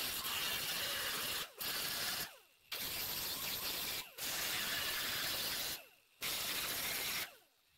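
Small grinding wheel grinding down plug welds on a steel quarter-panel wheel-well flange, taking the weld tops off to just above flush. The grinding stops briefly four times and ends about seven seconds in.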